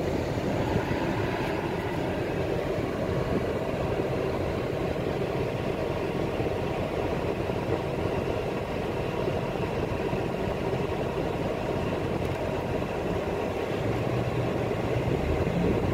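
Steady rush of a four-wheel-drive vehicle driving through standing floodwater, heard from inside the cabin: tyres running through the water under the engine. A low engine note comes up near the end.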